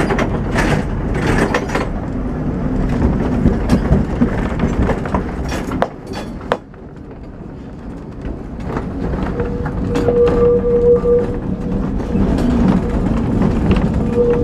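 Lisbon heritage tram running on street rails, heard from on board: a steady rumble with clicks and rattles of the wheels over the track, dropping briefly about six seconds in. About ten seconds in, and again near the end, a held high squeal rings out, typical of steel wheels on the tight curves.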